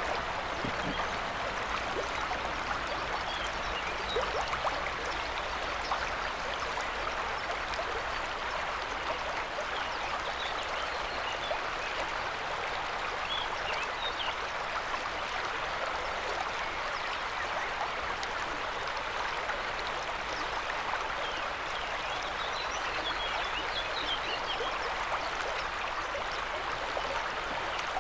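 River water flowing, a steady rushing with no change in level, with a few faint high chirps in the middle and again near the end.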